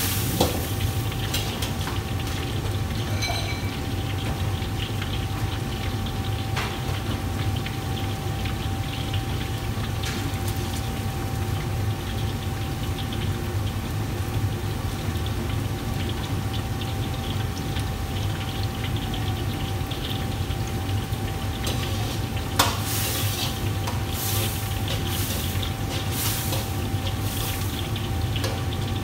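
Steady noise of commercial gas wok burners and the kitchen extractor hood running, with a low hum and a constant tone. About three-quarters of the way in there is a sharp metal clank, followed by several short bursts of sizzling and stirring in a steaming wok.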